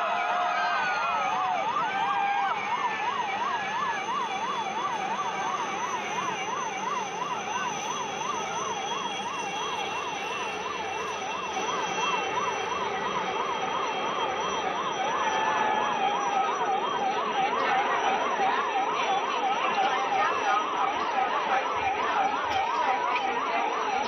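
Emergency vehicle siren in a fast warbling yelp, its pitch sweeping up and down about three to four times a second, with a crowd murmuring behind it.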